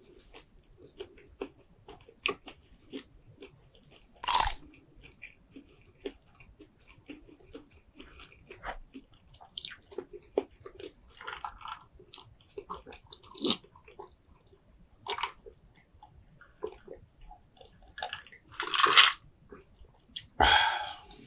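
Close-miked eating: wet chewing, biting and lip smacks from a seafood boil, with scattered short clicks and a few louder crunchy bursts about four seconds in and near the end.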